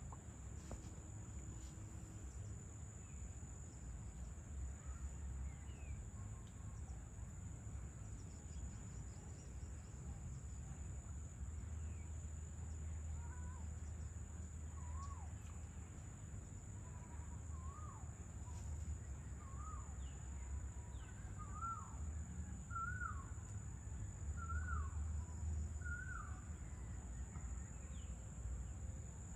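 Evening outdoor ambience: a steady high-pitched drone of insects over a low rumble. About halfway through, a bird starts calling a series of short, hooked, chirping notes about once a second, which stop near the end.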